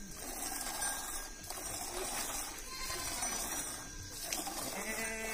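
Goat being milked by hand: thin jets of milk squirting into a half-full steel pail with a steady hiss. A goat bleats briefly near the end.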